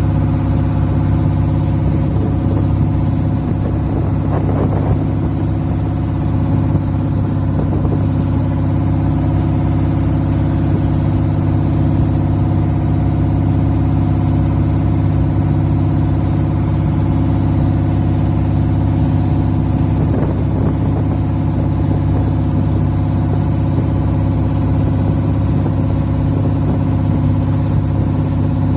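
Motor outrigger boat (bangka) engine running steadily at cruising speed, an even drone with no change in pitch.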